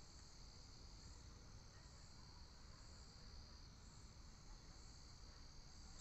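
Near silence: faint room tone with a steady high-pitched whine.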